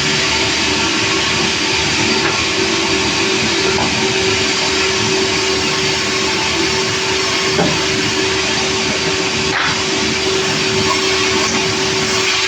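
Sawmill machinery running steadily: a loud, even mechanical noise with a constant hum, unbroken throughout.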